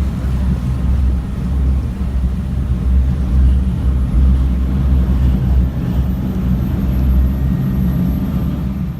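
Steady, loud low rumble of a running engine, which cuts off abruptly near the end.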